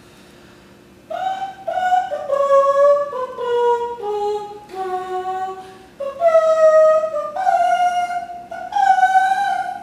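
A high voice singing unaccompanied. A run of short held notes steps downward in pitch, then a second phrase of longer, higher notes begins about six seconds in.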